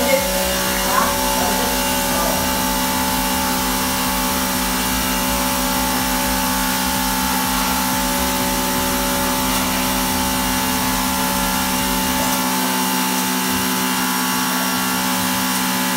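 Electric pressure washer running, a steady motor and pump hum with water spraying from the lance. The low rumble under the hum drops away about twelve seconds in.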